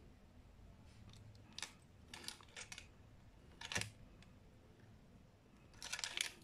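Faint handling noise of a metal jig and its hook being forced through a soft rubber squid skirt by hand: a few small, separate clicks, then a quick run of clicks near the end.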